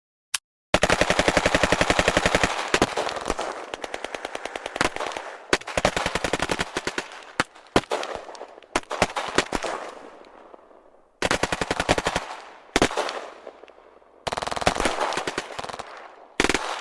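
Automatic machine-gun fire: a single shot, then a long rapid burst about a second in, followed by several shorter bursts and single shots with gaps between them, each trailing off in a reverberant tail.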